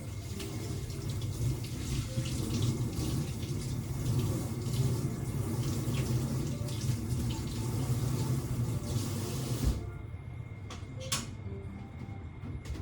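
Tap water running steadily into a sink, shut off abruptly about ten seconds in.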